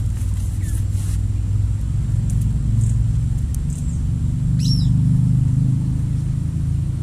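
A steady low rumble, with a short high chirp about four and a half seconds in.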